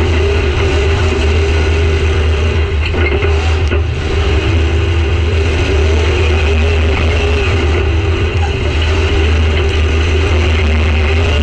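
Demolition derby car's engine running loud and steady, heard from inside the stripped-out cab, its pitch wavering a little as the throttle moves.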